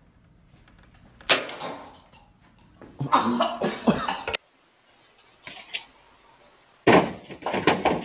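Several short, loud bursts of a person's voice, yells and laughter rather than words: one about a second in, another around three seconds in, and more near the end.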